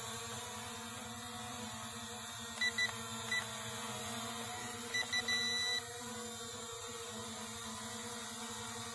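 Short electronic beeps from a toy quadcopter drone set, high and pure in tone: two quick beeps near three seconds in, a third just after, then two quick beeps and a longer one about five seconds in. Under them runs a steady low hum.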